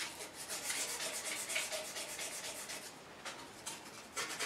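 Quick back-and-forth hand-sanding strokes of abrasive on hardened W2 steel, working the oxides out of a knife's handle-scale slot after tempering. The strokes pause briefly about two-thirds of the way through, then start again.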